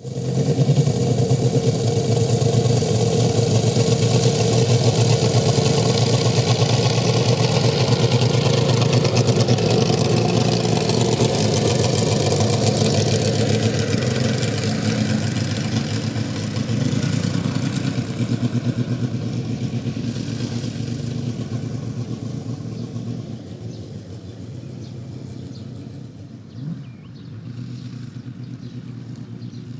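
Radial engine of a large RC model airplane running loud and steady, then gradually getting quieter over the second half. A short knock stands out near the end.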